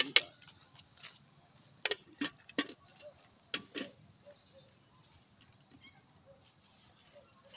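Spoon and dishes clinking several times as food is served out of a cooking pot onto plates, the clinks coming in the first few seconds and then stopping. Faint bird chirps in the background.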